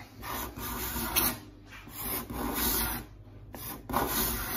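Card scraper pushed across a solid ash tabletop in several strokes, each a dry rasping scrape as the sharp edge lifts fine shavings and cleans up the glue lines.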